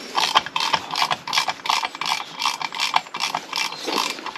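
Hand ratchet clicking steadily, about four clicks a second, as small screws are turned into an aluminium casing.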